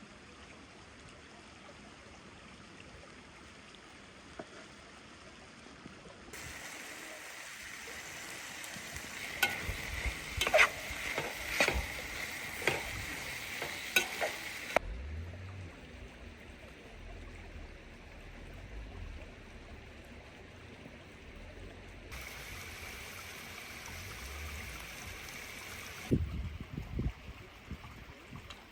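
Food sizzling in a pan over a fire while being stirred, with sharp clicks and scrapes of a utensil against the pan and a few dull knocks near the end.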